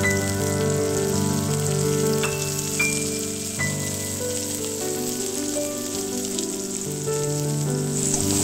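Sliced onions and green chillies frying in hot oil in a wok, a steady sizzle that grows a little louder near the end as a spatula stirs them. Background music of held notes plays over it.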